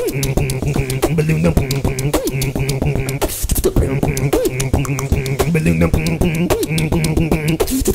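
Beatboxing: a fast run of vocal kick and snare clicks over a humming bass line that breaks in and out, mixed with vocal imitations of turntable scratching.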